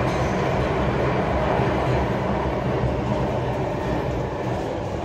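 Singapore MRT train running through a tunnel, heard from inside the carriage: a steady rumble of wheels on rail under a low hum, easing slightly near the end.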